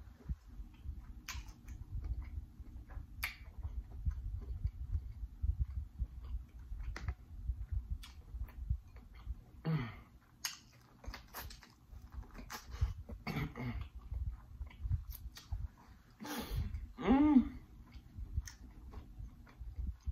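Close-miked chewing of a mouthful of seafood-boil food, with wet lip-smacks and mouth clicks. A few short hums break in, the loudest near the end.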